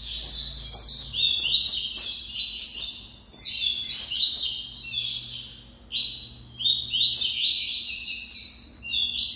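Caged double-collared seedeaters (coleiros) singing: a fast, unbroken stream of short, sharp, high notes.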